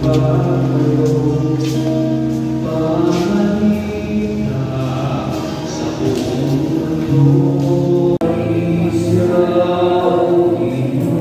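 A congregation singing a hymn together in long held notes, with a brief break about eight seconds in.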